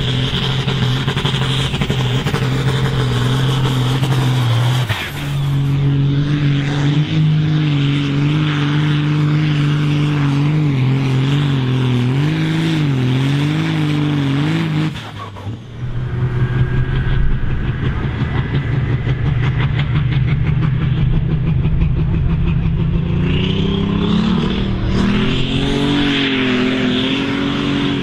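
Modified Ford pulling tractors' diesel engines running hard under load while dragging a weight-transfer sled, the engine note wavering and climbing as they pull. The sound cuts abruptly between different tractors about five and fifteen seconds in.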